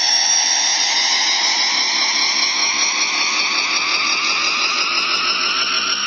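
Anime energy-blast sound effect of the Big Bang Attack: a continuous, warbling ki-blast rush that slowly falls in pitch.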